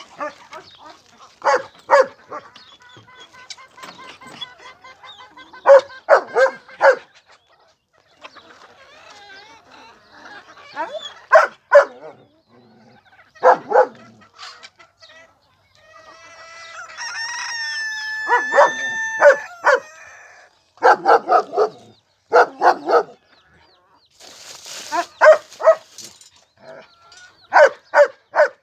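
Chickens clucking in short repeated bursts, with a rooster crowing once in one long call about two-thirds of the way in.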